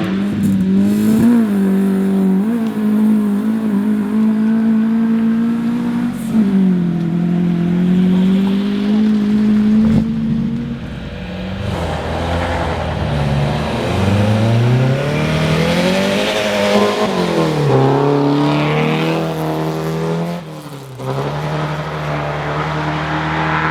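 Historic rally car engines running hard on a stage, the engine note holding high and dipping at gear changes. About halfway through the pitch falls low, then climbs steeply for a few seconds before settling lower near the end.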